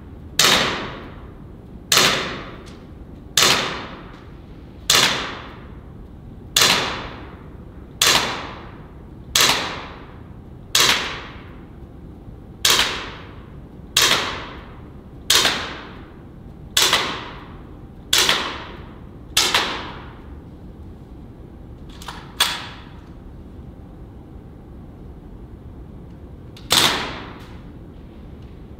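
Replica Glock air pistol firing single shots, about one every one and a half seconds: sharp cracks, each with a short echo off the range walls. After a pause there is a quick double shot, then one more shot a few seconds later.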